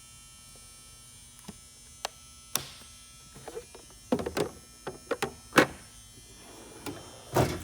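Irregular clicks and clunks of sockets and metal tool box drawers being handled, with a heavier thud near the end, over a steady electrical hum.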